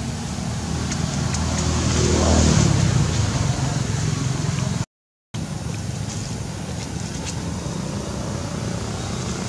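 A motor vehicle's engine passes by, growing louder to a peak about two and a half seconds in, then easing back to a steady low drone. The sound drops out completely for about half a second near the middle.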